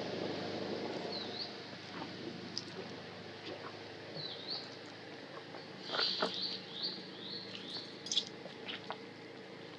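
Short, high chirping calls that dip and rise in pitch, coming in clusters and thickest about six to eight seconds in, with scattered light clicks. A low hum fades away over the first couple of seconds.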